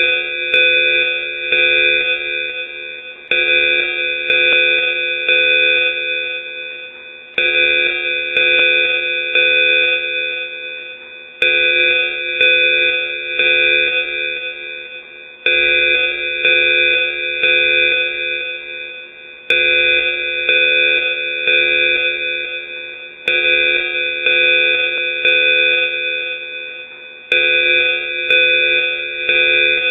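Electronic danger alarm: several steady warning tones sounding together, loud, repeating in a cycle about every four seconds, each cycle starting abruptly and fading away.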